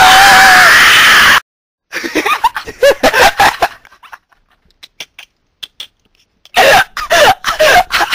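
A loud rushing noise with a gliding shrill voice over it, cut off abruptly about a second in. After a short silence come bursts of people's voices laughing, twice, with faint clicks between.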